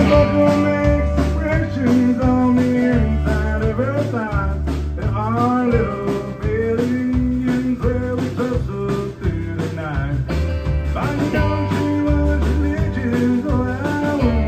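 Live country-rock band playing: electric guitar, acoustic guitar, bass and drums, with a man singing. Bending lead lines about four to six seconds in, over a steady bass line and drum beat.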